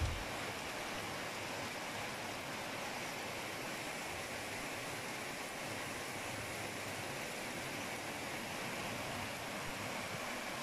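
Heavy rain mixed with hail falling on pavement, a hedge and parked cars: a steady, even hiss. A brief low thump sounds right at the start.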